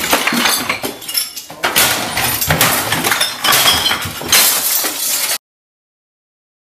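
Repeated crashes and breaking glass as objects are smashed around a room, with bottles clinking. It cuts off abruptly about five seconds in.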